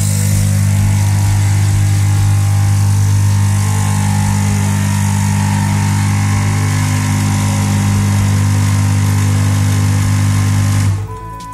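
Lavazza A Modo Mio espresso machine's vibratory water pump running with a steady, loud low buzz, pressurising the capsule-piercing piston circuit, then cutting off suddenly near the end.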